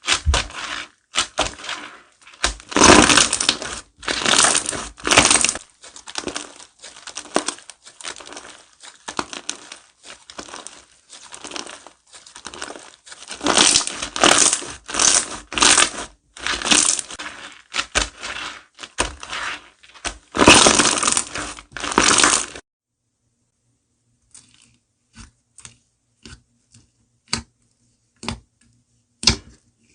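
Slime being squeezed and pressed by hand, giving repeated bursts of crackling and crunching. About three-quarters of the way in, the crackling stops and only scattered small clicks and pops remain.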